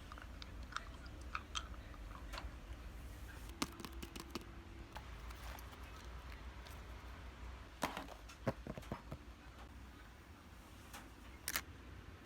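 Paper and stationery being handled while a journal page is decorated: scattered small clicks, taps and crinkles, with a few sharper clicks in clusters, over a faint steady low hum.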